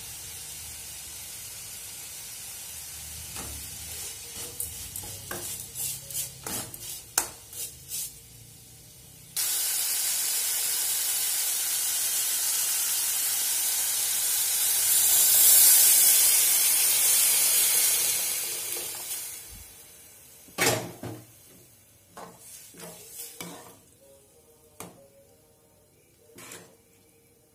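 Chopped onions, tomatoes and greens frying in oil in a steel kadai. A slotted spoon clicks against the pan as it stirs, then a loud, steady sizzle starts suddenly about a third of the way in, swells and dies away. More clinks and knocks of the spoon in the pan follow once water has been added.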